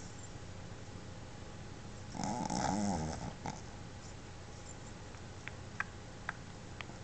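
Boston terrier snoring in deep sleep: one long, rasping snore about two seconds in, followed by a few faint clicks near the end.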